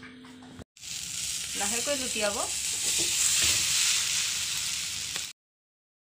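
Maggi noodle omelette sizzling loudly as it fries in a steel pan while it is turned over with a spatula. The sizzle starts about a second in and cuts off abruptly near the end.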